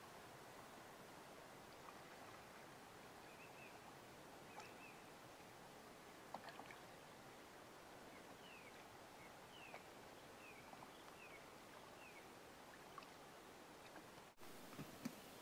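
Near silence by a still lake: faint steady hiss with a run of faint, short, falling chirps through the middle and a few faint soft clicks. The sound drops out briefly near the end.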